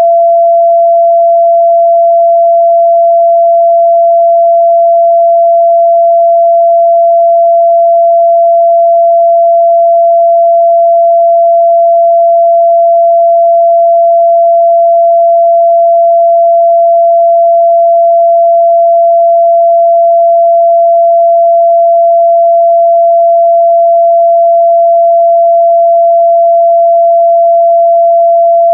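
A steady, loud pure sine-wave test tone at 678 Hz, one unchanging pitch with no harmonics.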